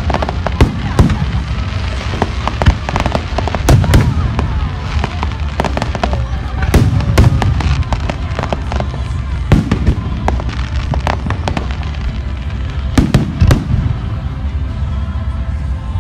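Aerial fireworks shells bursting in a continuous barrage: sharp bangs every second or two, some in quick clusters, over a steady low rumble and crackle.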